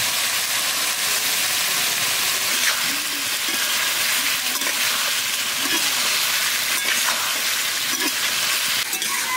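Pumpkin pieces frying in hot oil in a metal karahi: a steady sizzle, with a metal spatula stirring and scraping against the pan now and then.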